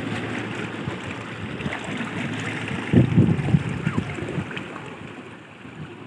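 Seawater surging and washing over rocks on a rocky shore, a steady wash with a louder low rumbling surge about three seconds in that eases off toward the end.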